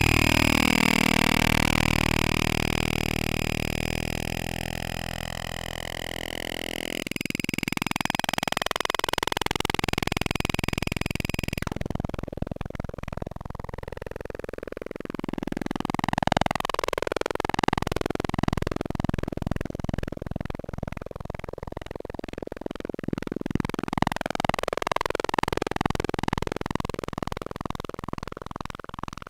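Eurorack modular synthesizer playing a drone. A low sustained tone with a sweeping filter changes into gliding, warbling tones about seven seconds in. The highs drop away about twelve seconds in, and from about halfway through the sound pulses rapidly.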